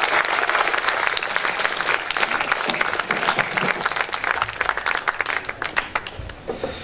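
Audience applauding, dense at first, then thinning to scattered claps and dying away near the end.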